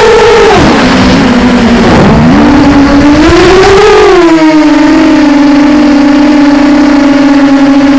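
Quadcopter's brushless motors whining, picked up by its onboard camera. The pitch drops sharply less than a second in, with a rush of noise, climbs again around three to four seconds in, then holds steady at a lower pitch.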